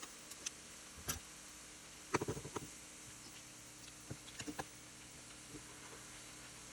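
Scattered light clicks and taps of kitchen handling, a quick cluster about two seconds in and a few more a couple of seconds later, over a faint steady hiss.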